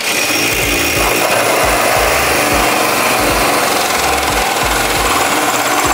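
Power tool cutting into the car's sheet metal, running steadily at a high, rasping pitch and starting suddenly.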